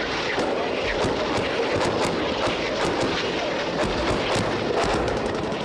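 Munitions striking the sea in a rapid, irregular string of cracks and blasts, several each second, over a continuous noisy background.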